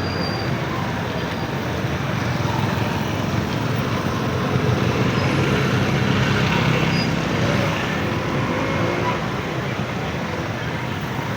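Road traffic noise: vehicles passing, growing louder about four seconds in as one comes by, then easing off after about eight seconds.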